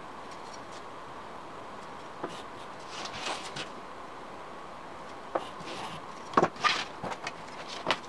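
Pencil scratching across plywood as a wooden beam compass is swung to draw an arc, with several light knocks and clicks from handling the wood. Near the end, a sharp click as a metal ruler is laid on the sheet.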